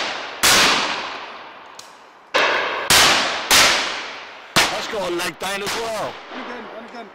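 Shotgun shots at driven pheasants overhead, about five in quick succession over four seconds, each with a long rolling echo off the woods. A voice calls out briefly after the last shot.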